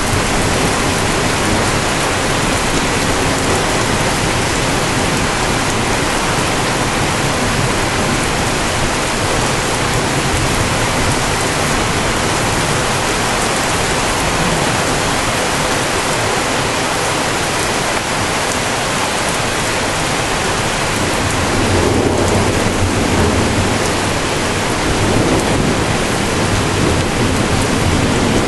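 Steady rain in a thunderstorm, a constant loud hiss. About three-quarters of the way in, a low rumble of thunder builds.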